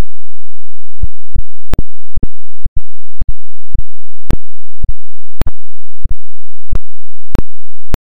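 A low steady hum broken by a run of about fifteen sharp clicks, roughly two a second, starting about a second in.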